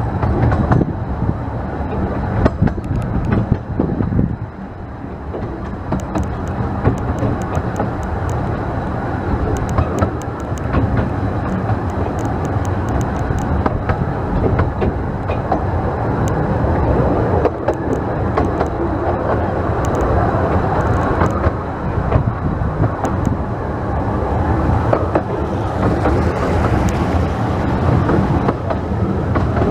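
A 15-inch gauge steam train running along the line, with ticking from the wheels on the rails. Strong wind buffets the microphone throughout.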